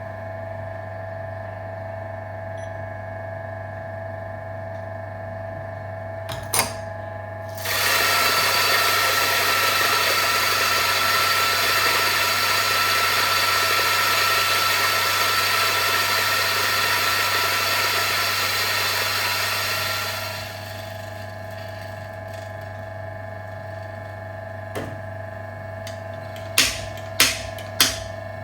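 Mazzer Philos flat-burr espresso grinder starting about 8 seconds in and grinding a single dose of beans for about 13 seconds with a loud, steady whir and high whine, then stopping. A few sharp taps follow near the end.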